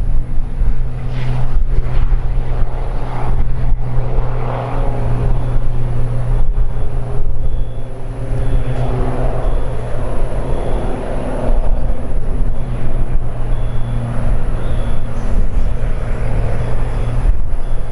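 An engine running loudly and steadily, with a constant low hum and a few higher tones that shift slightly.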